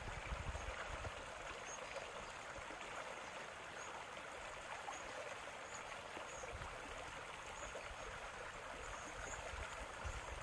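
A small stream running over rocks: a steady rushing and trickling of water.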